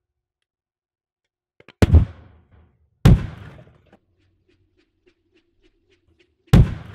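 Butane aerosol cans exploding in a fire: three loud bangs, one about two seconds in, another a second later, and a third near the end, each trailing off briefly.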